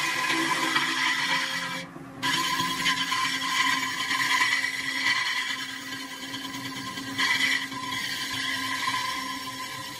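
A large aluminium pot turning on a motor-driven spindle while a steel rod is held against its rim: a steady metallic ringing whine with scraping. It breaks off briefly about two seconds in and swells again a little after seven seconds.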